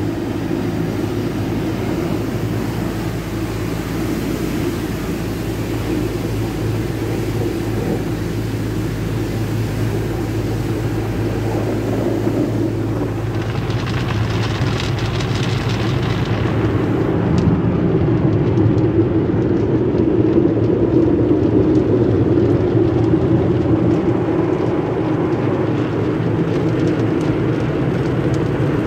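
Automatic tunnel car wash heard from inside the car: a steady, muffled rumble of water spray and wash brushes working over the car's body, with a louder hiss about halfway through.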